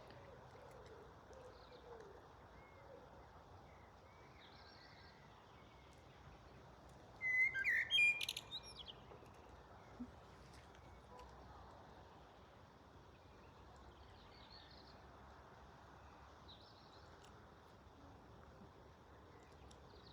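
Songbirds singing outdoors: one loud, quick phrase of gliding and sharp notes about seven seconds in, with faint, distant high calls now and then over a steady quiet background.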